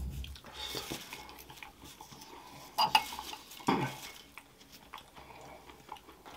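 A spoon clinking and scraping on a plate of rice: scattered light clicks, with two louder knocks near the middle.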